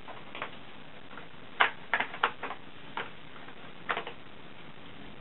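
Crayons and small art-kit pieces clicking and tapping against a moulded plastic tray as they are handled: about eight short, irregular taps, the loudest about a second and a half in.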